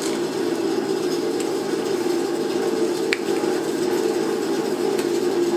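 Steady mechanical hum with a single sharp click about three seconds in.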